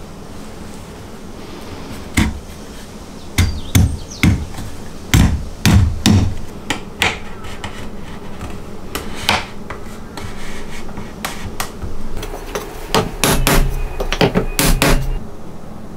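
Hammer blows on a thin scrap board laid over a wooden castle joint, driving the pine cross-piece down into the post's slot: a run of irregular sharp knocks, several close together at times, with a quicker cluster near the end.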